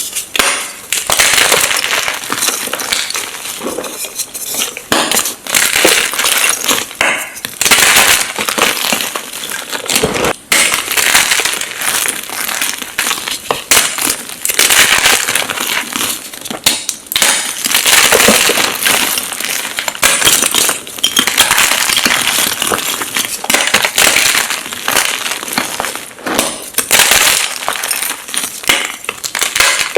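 Blocks of magnesium gym chalk being crushed and crumbled, a continuous run of crisp crunches and crackles with louder crunches every second or two.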